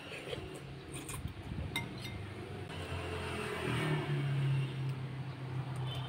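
An engine running, its low drone rising in pitch and getting louder about three and a half seconds in, with a couple of faint clicks early on.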